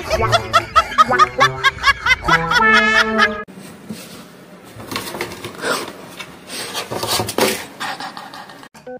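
A burst of rapid, rhythmic comic laughter over music, cut off abruptly about three and a half seconds in. Then quieter scuffling and rustling with scattered knocks as a kitten scrabbles in a box and a plastic litter basin.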